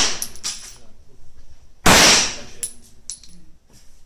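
Glock 21 C pistol firing a single .45 ACP shot about two seconds in, its blast echoing briefly in the indoor range; the echo of the previous shot dies away at the start. Light metallic clinks follow each shot, like spent brass casings landing.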